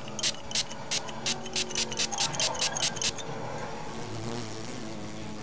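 Pump-spray bottle of aftershave spritzed over and over, about fifteen short sharp hisses that come faster and faster, then stop about three seconds in.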